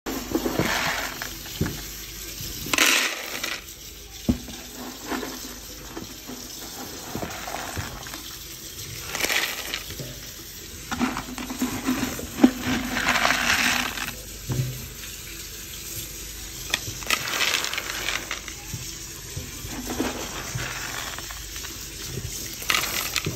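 Dried black-eyed beans pouring into a plastic bowl, rattling and clattering in several separate bursts as each lot goes in.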